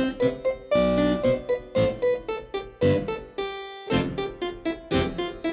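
Background music: a piano piece of short, detached notes, several a second, each fading quickly.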